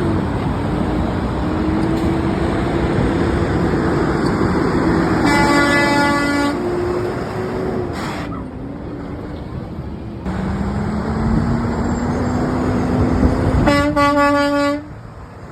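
A truck's air horn honking twice, a blast of about a second each, about five seconds in and near the end, over the loud engine and road noise of passing trucks.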